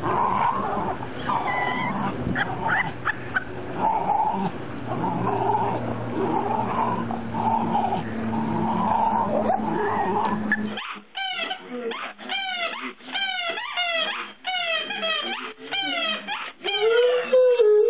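A Great Dane and a smaller dog playing, a jumble of dog sounds and noise. Then a Great Dane chews a squeaky toy, a rapid run of sharp falling squeaks, and near the end breaks into a long, steady howl.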